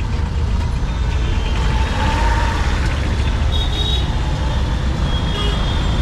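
Steady motor-vehicle traffic noise on a busy street: engine rumble and road noise, with a brief faint high tone about three and a half seconds in.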